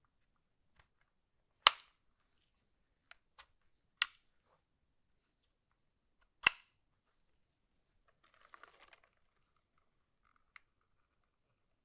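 Sharp clicks and snaps from handling a keyboard and its packaging during an unboxing. Three loud ones come about two and a half seconds apart, with lighter ticks between them, then a brief soft rustle near the end.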